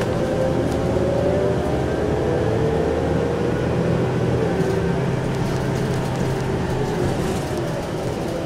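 City bus heard from inside the cabin while driving: a steady engine and road rumble with a faint whine that drifts slowly up and down in pitch.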